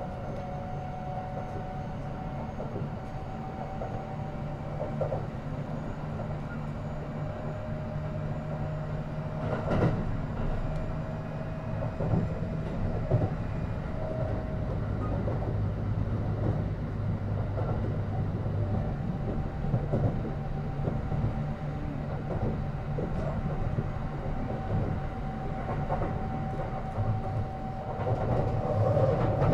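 Kintetsu 9820 series electric train heard from inside the car while running between stations: a steady rumble of wheels on rail under a held tone that shifts pitch a couple of times. Several sharp rail-joint clicks sound about ten seconds in and again later.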